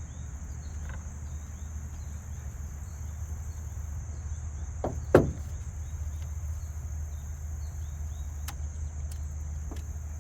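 Steady high insect drone with a low rumble beneath it, and faint chirps repeating about twice a second. A sharp knock, the loudest sound, comes about five seconds in, just after a smaller one, and a few light clicks follow later.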